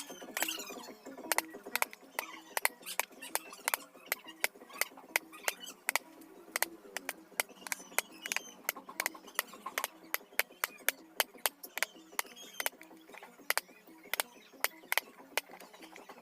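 Steel carving chisel struck with a mallet into teak wood: sharp, irregular taps, several a second.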